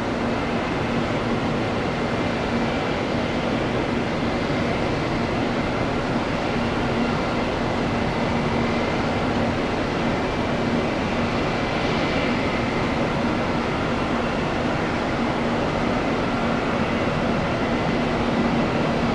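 Airbus A321 jet engines at takeoff power during the takeoff roll: a steady rushing noise with a low steady hum and a faint high tone.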